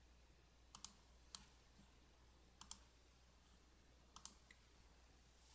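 Faint computer mouse clicks, several of them, some coming in quick pairs, over a very quiet low hum.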